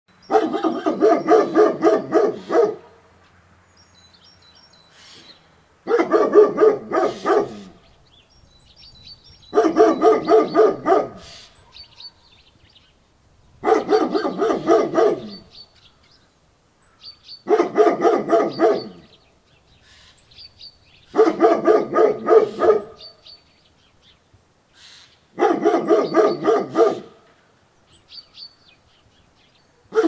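German Shepherd barking in rapid volleys: seven bursts of quick barks, each about two seconds long, coming every four seconds or so. Faint birds chirp in the gaps between bursts.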